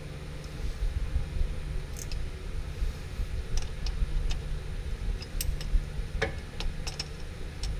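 Hand ratchet clicking in short, irregular strokes as the manual transmission's drain plug is screwed back in and tightened, over a steady low hum.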